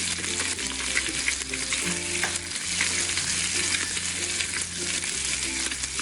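Recorded sizzling sound from a toy kitchen's grill as a pretend burger cooks: a steady frying hiss with crackles. Soft background music with low held notes plays under it.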